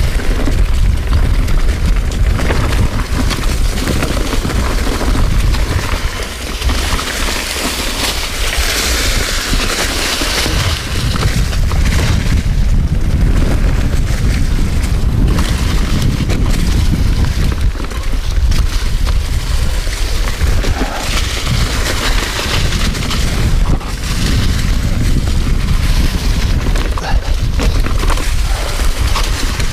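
Mountain bike riding fast down a dirt trail covered in dry leaves: steady wind rumble on a chest-mounted action camera's microphone, with the hiss of tyres through the leaves and knocks of the bike over bumps.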